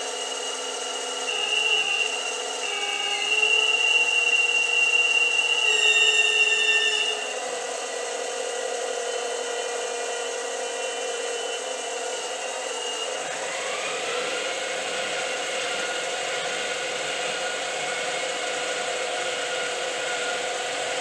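Hydraulic pump of a 1:8 scale Caterpillar 390D model excavator whining as its cylinders are run in and out to bleed air from the newly filled system. The pitch shifts with the load: louder for a few seconds about three seconds in, then a rising whine about thirteen seconds in that settles to a steady tone.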